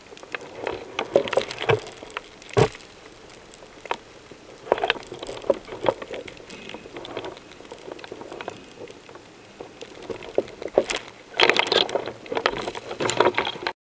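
Underwater bubbling and crackling clicks in clusters every four to five seconds, with one sharp knock about two and a half seconds in. It cuts off suddenly near the end.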